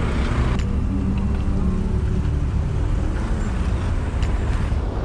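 City traffic noise heard from a moving e-bike: a steady low rumble of wind and road, with a nearby vehicle's engine running through the first few seconds.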